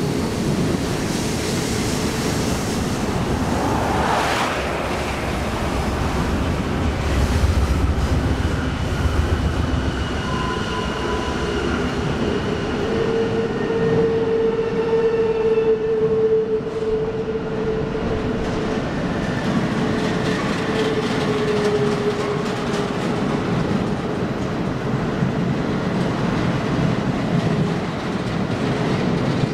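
BNSF double-stack intermodal train of well cars rolling past on curving track: a steady rumble of steel wheels on rail with clickety-clack. Thin squealing tones from the wheels come and go, most of all about midway through.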